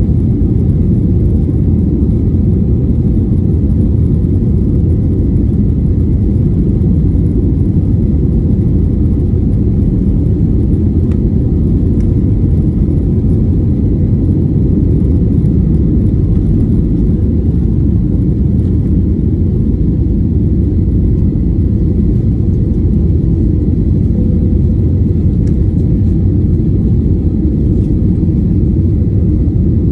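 Jet airliner cabin noise on takeoff: a steady low rumble of the engines at takeoff power, heard inside the cabin, which carries on unchanged through the takeoff run and into the climb after liftoff.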